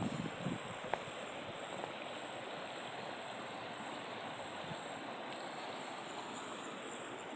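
River water flowing, a steady rushing hiss, with a thin high steady insect buzz over it.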